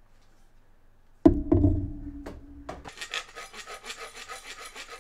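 A few loud knocks as the wooden dowel is handled, then from about halfway in a small hand hacksaw cuts through the wooden dowel with quick, even rasping strokes.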